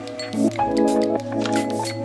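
Background music: sustained chords over a steady, even beat.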